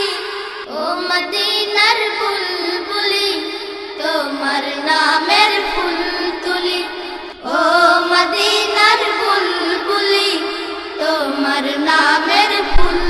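A Bengali gazal sung by a high voice: a slow, ornamented melody with wavering held notes and a brief break about seven seconds in.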